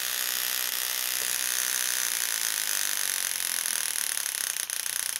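Solenoid graver handpiece buzzing as its solenoid hammers rapidly under pedal control at up to 50 pulses a second, while the pulse frequency is turned down in real time.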